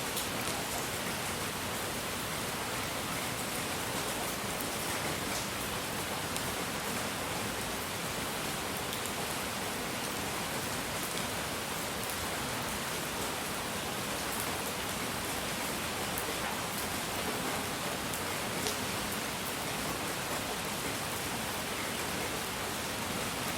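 Steady, even hiss of a relaxing noise track, rain-like, with a few faint scattered ticks.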